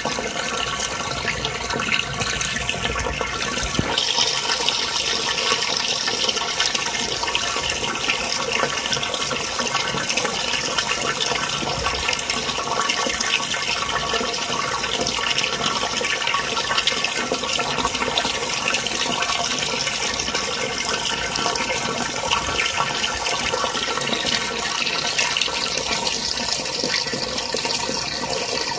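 Jet of water from an aquaponics pump return splashing steadily into a barrel fish tank.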